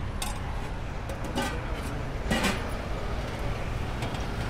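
Steady rumble of road traffic, with a few short metallic clinks and scrapes of a serving spoon against steel pots; the loudest comes a little past halfway.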